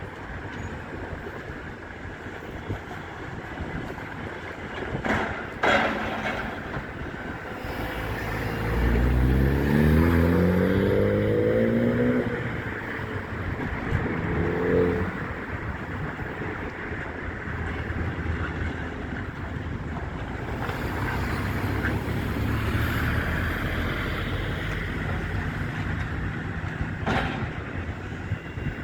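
A vehicle engine accelerating, its pitch rising in steps as if through the gears, about a third of the way in, with a shorter rise soon after. Steady wind noise runs underneath, and a couple of sharp knocks or clanks come early on and near the end.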